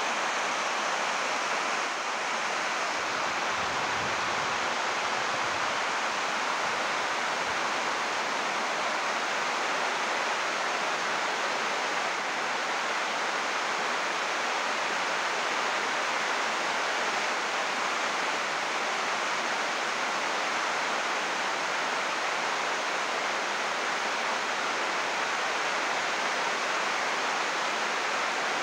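Heavy rain falling on an 80-micron UV plastic greenhouse roof: a dense, steady hiss of drops.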